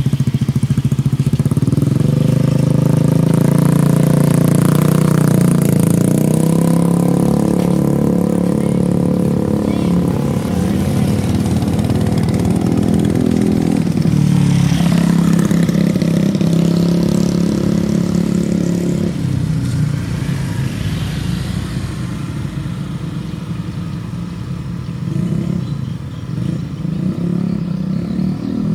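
Small motorcycle and scooter engines running close by, one idling and pulling away, with others passing on the road. The loud engine sound drops away about two-thirds of the way through, leaving quieter traffic.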